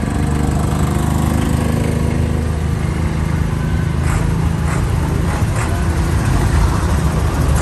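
Diesel tractor engines running as tractors drive past at walking pace. A small vintage tractor's engine note sinks slightly as it moves away, then a large Deutz-Fahr AgroStar tractor's deeper engine rumble comes through as it approaches.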